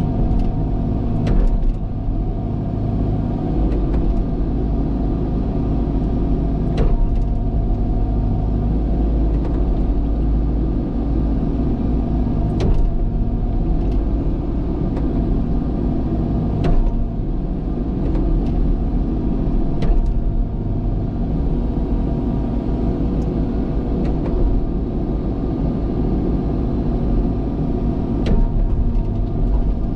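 Diesel engine of heavy earthmoving equipment running steadily at work, with a handful of short knocks or clanks at irregular intervals.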